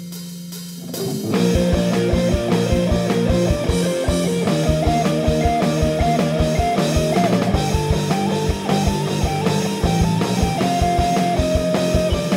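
Rock band playing an instrumental passage: a held chord dies away, then about a second in the full band comes in with a steady drum beat under a guitar melody.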